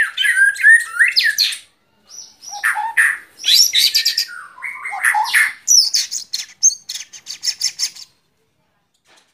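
White-rumped shama singing: varied whistled phrases with sweeping notes and quick trills, broken by a short pause about two seconds in, ending in a run of rapid repeated notes that stops about a second before the end.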